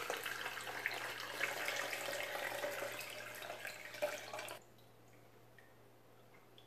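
Fermented onion, garlic and chili water pouring through a fine mesh strainer into a plastic tub, trickling steadily; the pour stops a little past halfway through.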